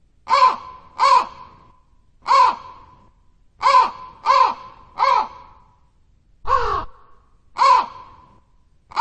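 A crow cawing repeatedly: eight short, harsh caws that each slide down in pitch, coming singly and in quick runs of two or three about a second apart. One caw near the end of the second half carries a low thump beneath it.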